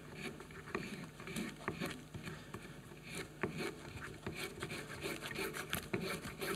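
Metal spokeshave cutting pine, taking a heavier cut in short stabbing strokes to round the back of a spatula blank: a quick run of short scraping cuts as shavings peel off.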